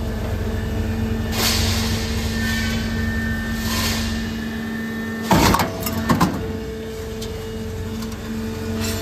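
Steel roll forming machine running with a steady motor hum, with two short hisses early on and two loud metallic clatters about five and six seconds in.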